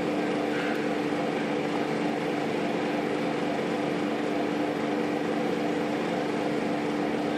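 Steady background hum with one constant low tone, unchanging throughout: room machine noise.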